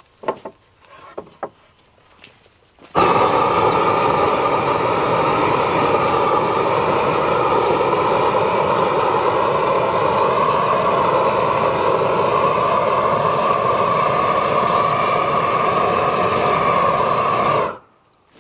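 Long-wand propane torch burning steadily and loudly, starting suddenly about three seconds in and shutting off abruptly near the end. A few light knocks come before it lights.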